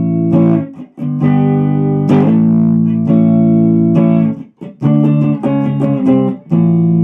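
Gibson Les Paul electric guitar played on its neck (rhythm) humbucker split to the single screw coil, volume on 10: a series of strummed chords, each left to ring for a second or two with brief breaks between.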